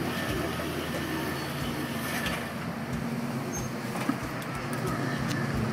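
Steady engine hum and road noise of a moving Megabus coach, heard from inside, with one short click about four seconds in.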